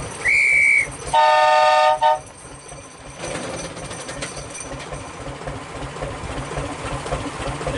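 A short single-note whistle blast, then a horn blast of about a second from a Hudson-Hunslet diesel locomotive on a 2 ft gauge line: the departure signal. About three seconds in, the locomotive's diesel engine picks up and runs louder.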